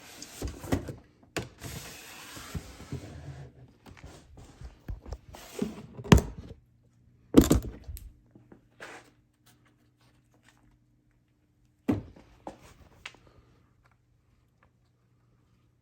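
Snake enclosure tubs and lids being handled during feeding: a run of knocks, scrapes and sliding thunks, with loud thumps about six, seven and a half and twelve seconds in. A faint low steady hum sets in about halfway through.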